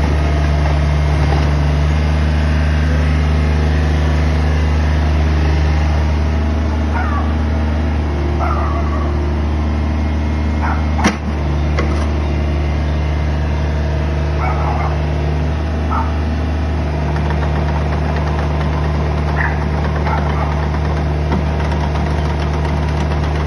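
Komatsu PC35 mini excavator's diesel engine running steadily while the machine is operated, with one sharp knock about eleven seconds in.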